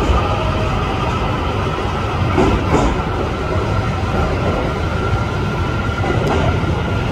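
Odakyu 60000 series MSE Romancecar electric train pulling out of the platform: a steady rumble of wheels and running gear, with a faint high tone held over it.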